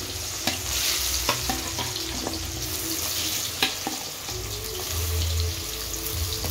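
Hot sesame oil sizzling steadily in a kadai as boiled amla (Indian gooseberry) pieces are slid in from a steel bowl with a slotted steel ladle. Scattered sharp clicks run through it.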